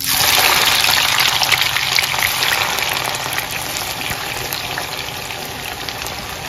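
Sliced onions dropped into hot refined oil in a kadhai, sizzling hard with crackles. The hiss starts suddenly and slowly eases as the onions begin to fry.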